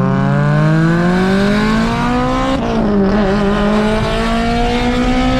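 Car engine accelerating hard, its pitch climbing, then dropping sharply at a gear change about two and a half seconds in before climbing again.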